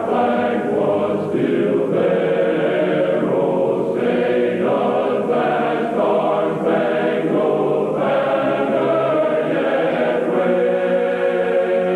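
A choir singing in held chords that change every second or so, with a dull sound that has no high treble.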